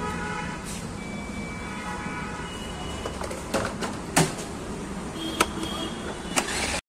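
Petrol being filled into a motorcycle's tank at a forecourt pump over a steady background hum. From about three and a half seconds in there is a series of sharp clicks, the loudest a little after four seconds, as the nozzle comes out and the hinged fuel-tank cap is shut and locked with the key.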